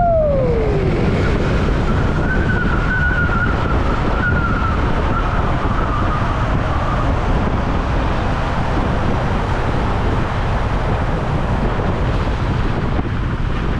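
Heavy, steady low rumble of wind buffeting the microphone. A pitched whine falls in the first second, and a higher wavering whine runs for a few seconds after that.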